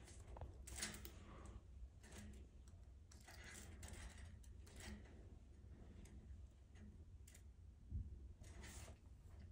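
Faint, irregular clicks and smacks from a bearded dragon's jaws as it gulps down a hopper mouse, a second or more apart, over a low steady hum.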